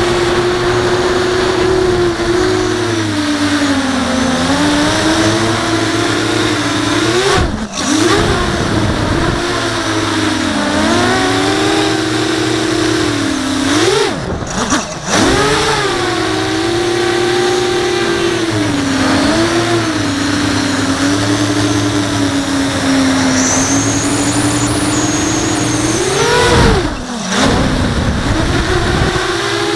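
Brushless motors and 5-inch propellers of an FPV quadcopter whining, the pitch rising and falling with throttle. Several times the pitch climbs and then the sound drops out briefly: about seven seconds in, twice around fourteen seconds, and near the end, as the throttle is chopped.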